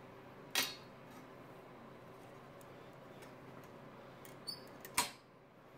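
Locking C-clamp welding pliers being set and snapped shut on steel tubing: two sharp metallic clacks, one just after the start and one near the end, with a few small ticks of metal against metal before the second, over a steady faint hum.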